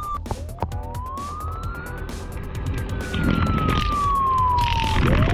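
Electronic wailing siren from the Huina 1562 RC fire truck's sound module: a single tone that glides up, then slowly down, and starts rising again near the end. A little past halfway a spraying hiss joins in as the roof water cannon shoots water, and the whole gets louder.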